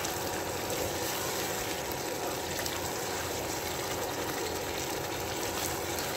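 Chicken and thick masala sizzling in oil in a pan, a steady hiss with faint crackles.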